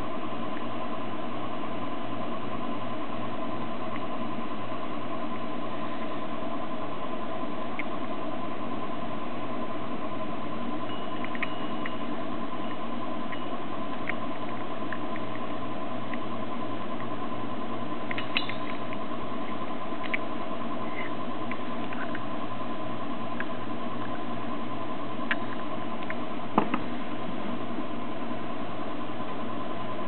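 Steady hiss and hum with a constant high tone, unchanging throughout, with a few faint clicks of small metal connector parts being handled.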